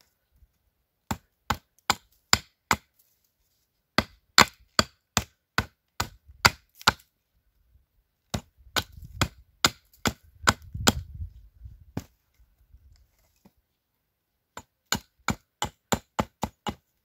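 Hatchet chopping into wood to shape a mallet: sharp strokes about two or three a second, in runs with short pauses between them. A low rumble sits under the strokes about halfway through.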